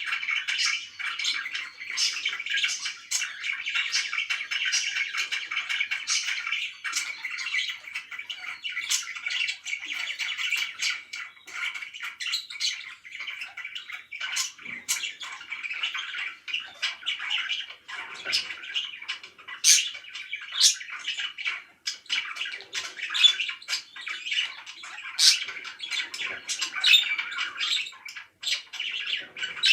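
Pet parakeets chirping and squawking continuously, a dense chatter of many short calls. A few sharper, louder squawks stand out in the second half.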